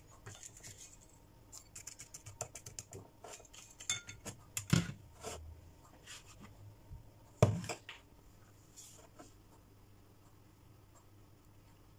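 Spoon clicking and scraping against a small glass verrine while crushed shortbread crumbs are spooned and pressed into it, with two louder knocks of glass and spoon about halfway through and a little later, then only faint ticks.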